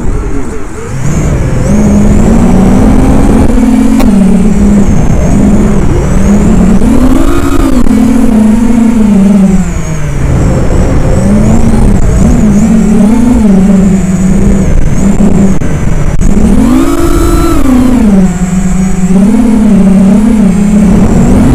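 FPV racing quadcopter's motors and propellers whining loudly as heard from its onboard camera, the pitch rising and falling with the throttle. The sound dips briefly about a second in, then picks up again.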